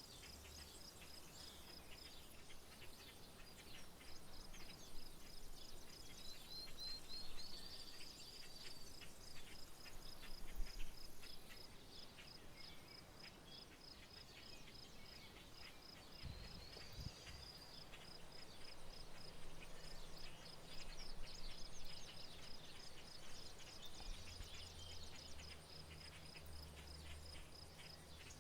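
Outdoor insect chorus: a steady, rapidly pulsed high trill of a cricket. A few short bird chirps come through at times, and a faint low rumble starts in the second half.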